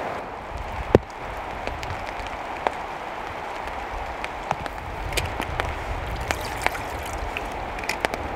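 Rain on a camouflage tarp shelter: a steady hiss of rainfall with scattered sharp drop hits, the loudest about a second in.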